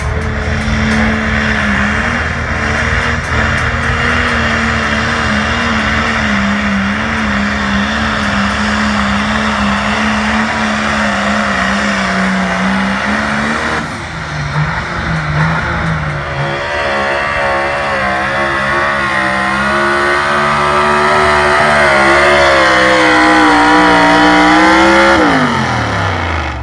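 Competition pulling-tractor engines running flat out during hooks: first an engine holding a wavering pitch, then, after a cut, another climbing steadily in pitch as it pulls the sled and dropping sharply near the end as the throttle comes off.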